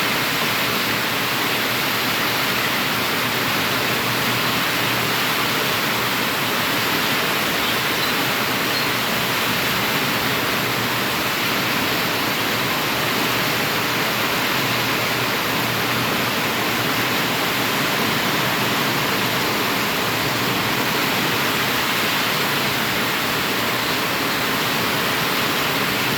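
Steady rain falling as an even, unbroken hiss, with no separate drops, gusts or thunder standing out.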